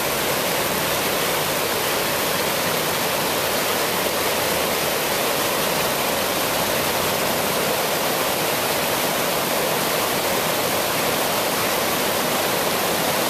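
River water rushing steadily over the rocks of a low weir, a constant, even roar of white water.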